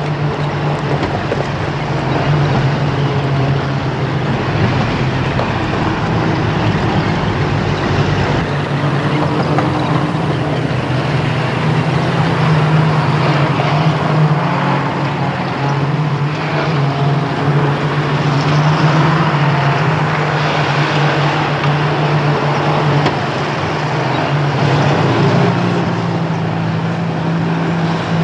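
Engines of a convoy of military trucks driving on a desert dirt track, a steady continuous drone.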